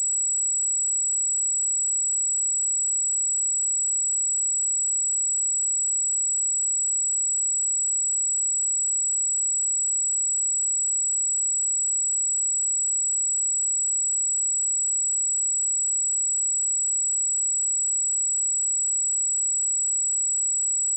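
A pure 7812 Hz sine-wave test tone, a single steady high-pitched whistle held at constant level, used to check speakers and headphones.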